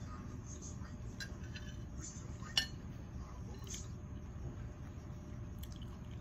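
Cutlery clinking against a plate during a meal: a few light clicks and one sharper clink about two and a half seconds in, over a steady low hum.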